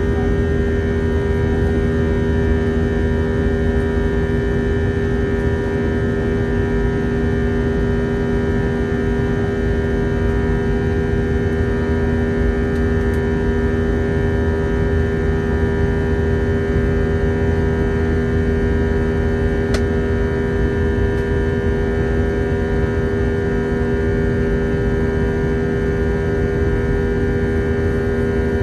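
Cabin noise of an Airbus A320-232 from a window seat beside its IAE V2500 turbofan engine in the climb: a steady hum with several held tones over rushing air.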